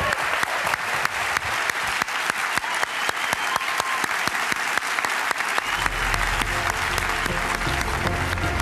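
Large audience applauding, a dense steady clatter of clapping. About six seconds in, music with a steady low bass comes in under the applause.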